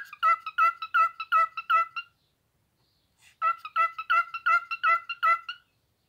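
Cockatiel giving two quick runs of short, evenly repeated chirping calls, about three a second, with a pause of over a second between the runs.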